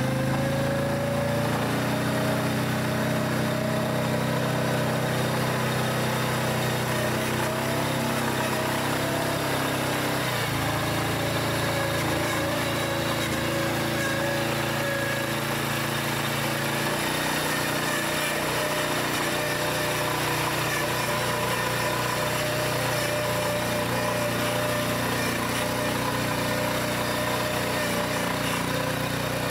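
All-terrain vehicle engine running steadily. Its note rises slightly at the start and changes pitch again about a third of the way through and just past halfway.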